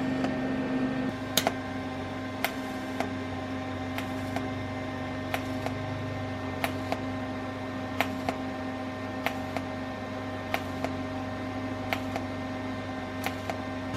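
TIG welding arc giving a steady electrical hum, with sharp ticks every second or so.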